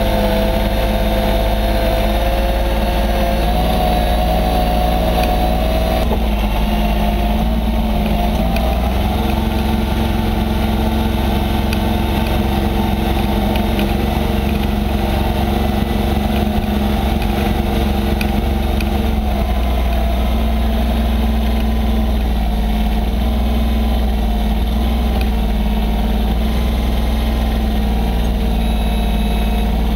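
Massey Ferguson 1020 tractor's diesel engine running steadily, heard up close from the driver's seat, its pitch rising a little over the first few seconds and then holding.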